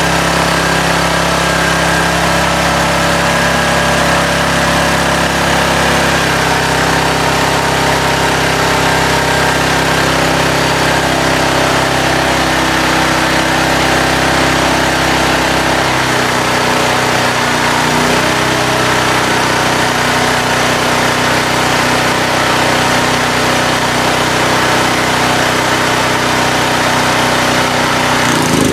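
Titan Industrial generator's gasoline engine running steadily, just brought back to life after a no-start. Its tone shifts about sixteen seconds in.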